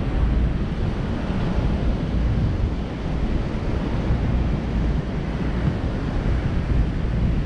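Strong wind blowing on the microphone over breaking surf washing up the sand.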